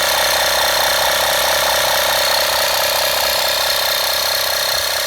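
The small electric air compressor of a handheld car vacuum and tire inflator running steadily, pumping air into a flat tire. It is loud and even, with a constant high whine over the motor noise.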